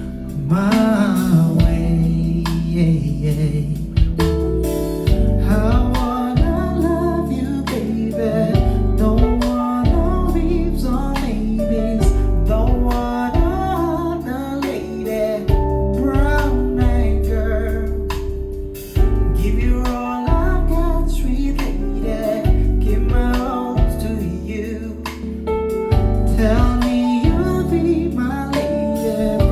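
A song with a singing voice and heavy, pulsing bass, played loud through a JBL PartyBox party speaker for a sound test.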